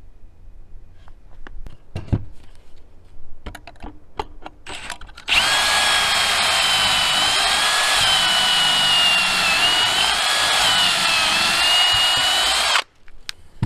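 Power drill boring a pocket hole through a heavy-duty Kreg jig into green 2x lumber. It is a loud, steady whine of about seven seconds, its pitch dipping a little now and then as the bit works through wet wood that clears poorly, then it stops abruptly. A few knocks and clicks come before it as the jig and board are handled.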